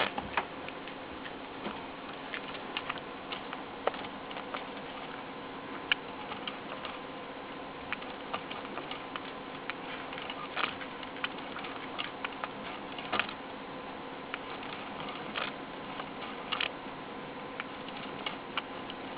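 Abyssinian guinea pig making small, sharp clicks and ticks at an irregular pace, a few loud ones among many faint ones.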